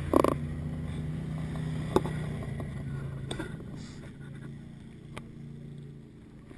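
Trial motorcycle engine idling at low revs, slowly fading. There is a short knock just after the start and a few light clicks.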